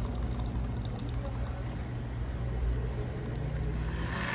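A steady low machine hum. A faint rising tone joins it near the end, and a short hiss follows about four seconds in.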